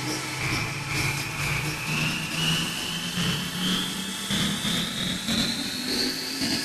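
Sport-fishing boat's engines revving up, with a whine that climbs steadily in pitch and a low engine hum rising with it, over the rush of churned water.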